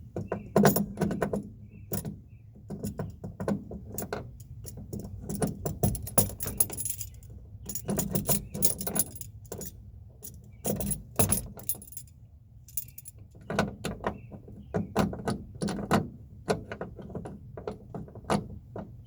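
Irregular metallic clinking and rattling of loose door striker hardware being handled and fitted into the door pillar by hand, with many sharp clicks and knocks at uneven intervals.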